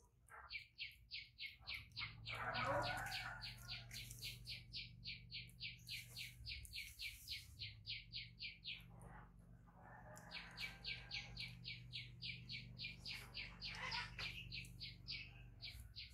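A rapid, evenly paced high chirping call, about four or five chirps a second, keeps on for about eight seconds, stops, then starts again about ten seconds in for another five seconds. A brief, louder rising squeak comes about two and a half seconds in, with a faint steady low hum underneath.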